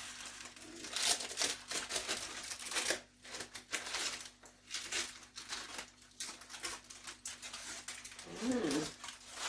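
Irregular crinkling and rustling of aluminium foil and parchment paper being handled and peeled back.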